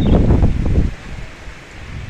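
Strong wind blowing in a gust, buffeting the microphone with a low, fluttering rumble. The gust eases off about a second in.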